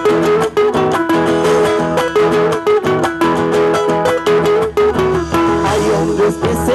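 Chacarera music: guitar strummed in a quick, steady rhythm with a sustained melody line over it.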